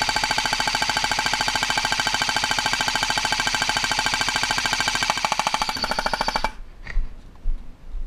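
Airsoft rifle firing one long full-auto burst: a rapid, even clatter of shots over a steady whine, stopping abruptly about six and a half seconds in. A couple of single knocks follow.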